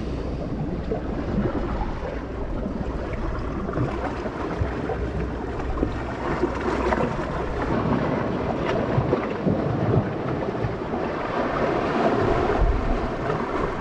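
Sea waves washing against the shore rocks, with wind buffeting the microphone in a low rumble.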